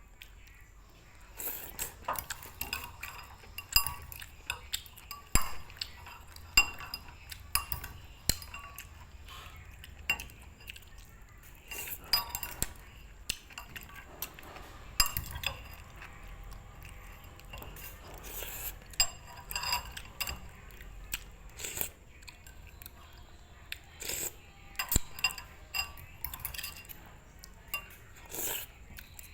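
Metal utensils clinking and knocking against pots, pans and dishes in quick, irregular strokes.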